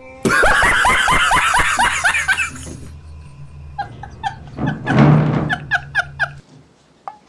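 Comic background music: a quick run of short falling notes for about two and a half seconds, then a bouncy run of repeated short notes over a steady bass line that cuts off suddenly near the end.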